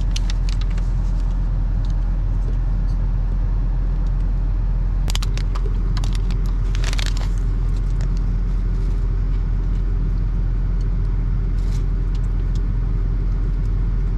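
Car cabin noise while driving: a steady low rumble of engine and tyres, with scattered light clicks and a brief hiss about seven seconds in.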